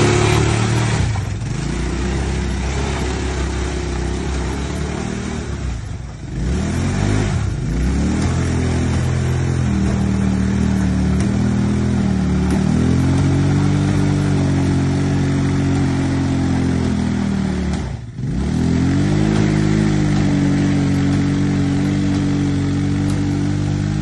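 ATV (quad bike) engine running under way, its pitch rising, holding and falling again as the throttle is opened and eased off, with brief dips about six seconds in and again near the end.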